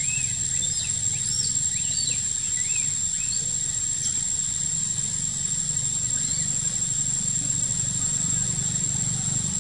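Forest ambience: small birds chirping in quick, arched calls, busiest in the first few seconds, over a steady high-pitched insect drone and a low steady rumble.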